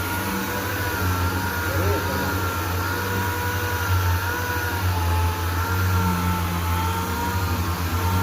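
Power sander running steadily on a primed car body panel: a continuous motor hum with a slightly wavering whine.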